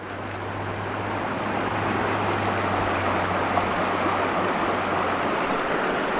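Mountain stream water rushing steadily over rocks, with a low steady hum underneath that fades out about five seconds in.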